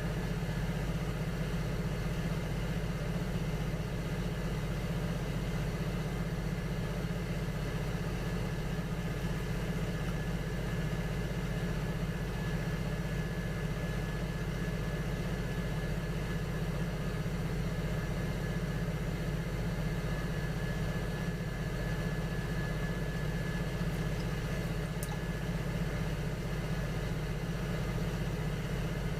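Electric potter's wheel running at a steady speed: a constant motor hum with a thin high whine over it.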